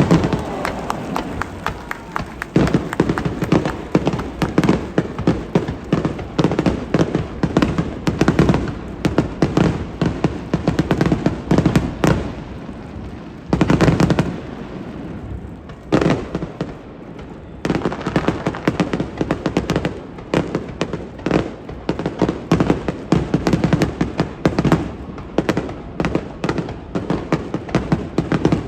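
Fireworks display going off in a dense, continuous series of bangs and crackles, with two short lulls partway through.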